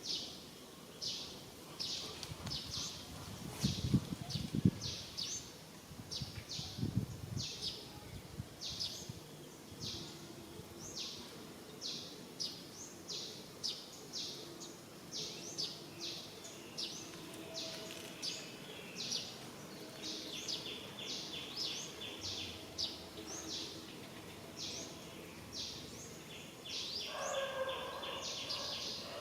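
A bird repeating a short, high chirp about twice a second over a steady outdoor background. A few low thumps come around four and seven seconds in, and a brief lower call joins near the end.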